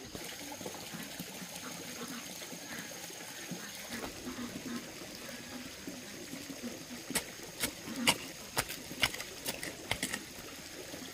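Water trickling steadily, with several sharp clicks or taps in the second half.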